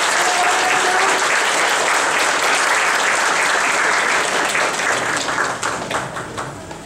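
Audience applauding, a dense wash of clapping that thins to scattered claps and dies away over the last two seconds.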